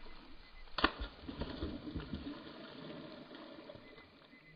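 A hooked fish splashing and thrashing at the river surface as it is pulled in on the line, with one sharp splash about a second in; the splashing fades toward the end.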